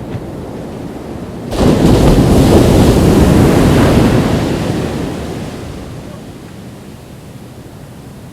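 Ocean wave breaking on the beach about a second and a half in, its rushing wash loud for a few seconds and then fading away.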